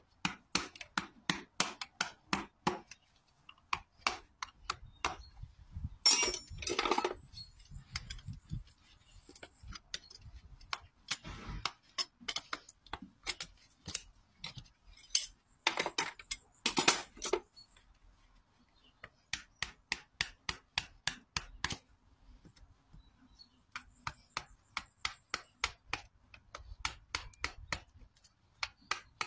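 A farrier's hammer tapping a clinch cutter on a horseshoe's nail clinches: runs of sharp metal taps, about four a second, with short pauses between. Twice there is a louder grating burst as the shoe is pried with pullers.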